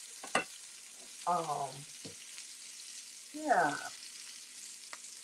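Peppers sizzling in a frying pan, a soft steady hiss. A light click comes near the start, and a woman makes two short wordless vocal sounds over it.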